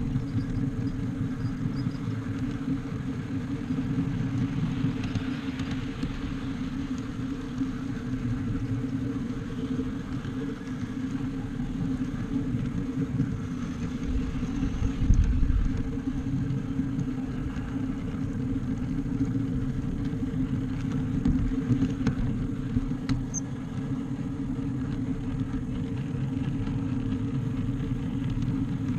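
Garden-scale model train running along its track: a steady low rumble of wheels and drive with a constant hum, and a louder thump about halfway through.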